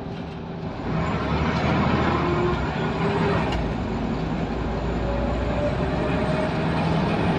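Scania L94UB Wright Solar bus's diesel engine and running noise heard from inside the saloon. The engine gets louder about a second in, and its note rises over the following seconds as the bus picks up speed.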